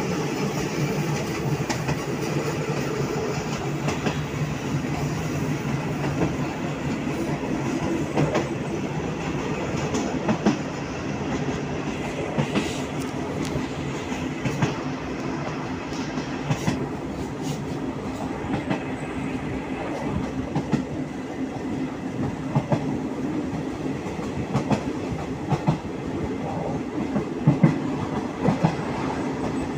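Passenger train running along the track, heard from aboard: a steady rumble of wheels on rail with a clickety-clack of rail joints. The clacks come closer together near the end.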